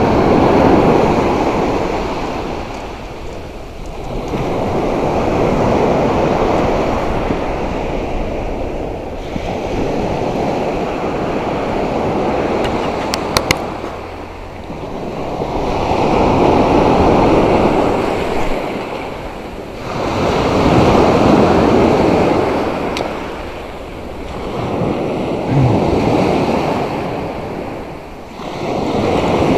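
Sea surf breaking and washing up a sandy beach, the wash swelling and fading every five seconds or so as each wave comes in, with some wind on the microphone.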